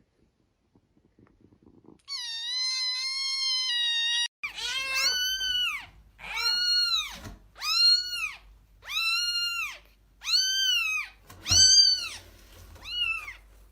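A cat meowing: about two seconds in, one long held call, then about seven meows in a row, each rising and falling in pitch.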